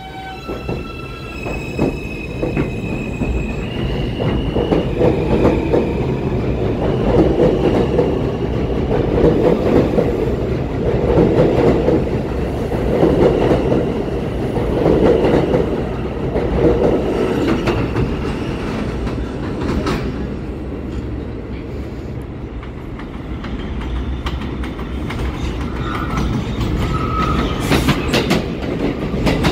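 New York City subway J train accelerating out of an elevated station: a whine in stepping tones over the first few seconds, then the cars rumbling and clacking past on the rails in a beat of about one swell every two seconds. Near the end another J train approaches, with a higher tone over the rail noise.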